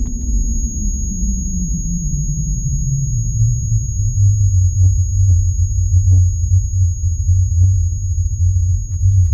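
A deep synthesized drone glides down in pitch over the first three seconds, then holds as a steady low hum, with a thin high whine above it. A few faint ticks sound in the middle.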